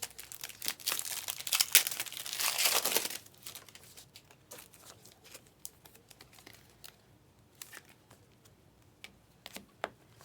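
A foil trading-card pack wrapper being torn open and crinkled for about three seconds, followed by scattered soft clicks and ticks of the cards being handled.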